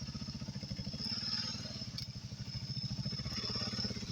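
Dual-sport motorcycle engine running at low revs with a steady, rapid pulse, the bike being ridden slowly through a rocky river crossing.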